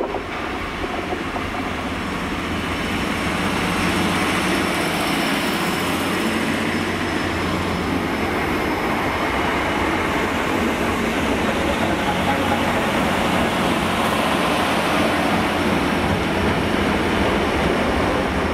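A passenger multiple-unit train running past close alongside the platform: a steady rumble of wheels and running gear that builds over the first few seconds and then holds.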